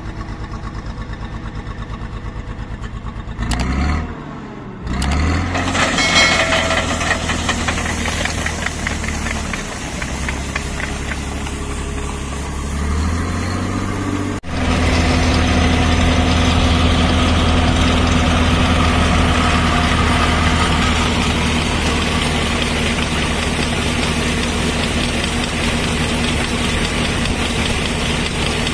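An engine idles with an even pulse, then is revved up about four seconds in and runs at varying speed. Around the middle it breaks off abruptly and continues running steadily and louder.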